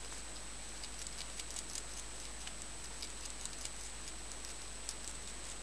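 Long-eared hedgehog chewing mealworms: irregular small crisp clicks and crunches, bunched about a second in, then scattered.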